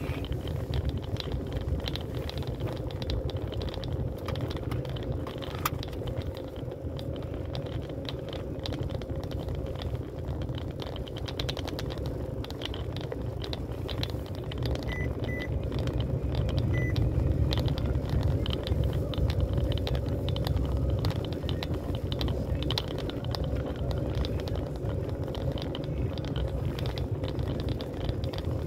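Car driving slowly over an interlocking paving-stone road: a steady low engine and tyre rumble with a hum, and constant small rattles and clicks from the tyres on the pavers. It swells for a few seconds about halfway through.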